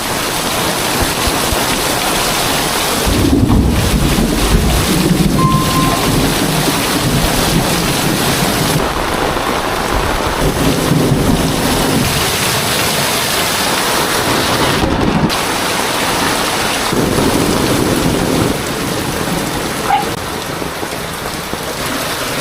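Very heavy rain pouring down: a loud, steady, dense hiss, with deeper low rumbling swells rising in it several times.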